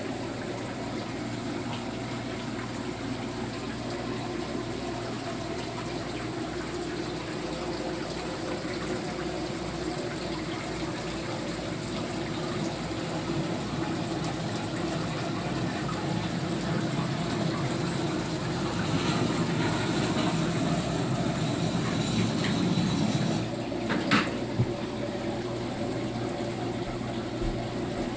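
Steady rush of circulating water from a saltwater reef aquarium's filtration, water running through the overflow and return pump, with two sharp clicks about 24 seconds in.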